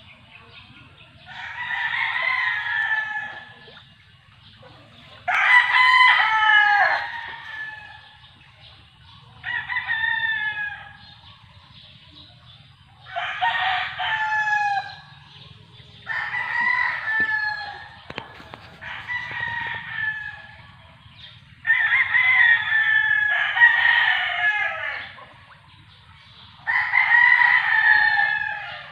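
Roosters crowing, about eight long crows in a row spaced a few seconds apart, some of them overlapping.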